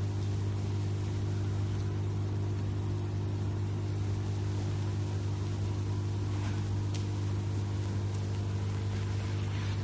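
A steady low hum, unchanging throughout.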